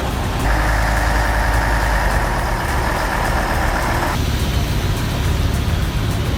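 A heavy machine's engine running steadily with a deep rumble. A higher, steady sound rides on top of it from about half a second in until about four seconds in.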